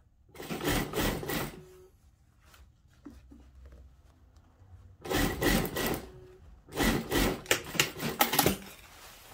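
Industrial sewing machine stitching in three short runs of a second or two each, with quieter fabric handling between, sewing a blazer's lining seam back closed.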